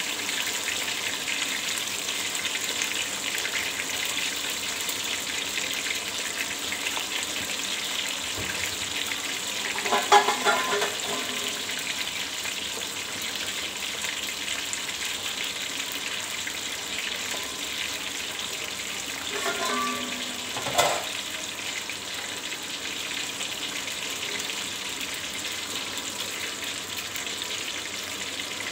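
Whole steamed chicken deep-frying in hot oil in an aluminium pot: a steady sizzle and crackle. Two brief louder sounds break in, about ten and twenty seconds in.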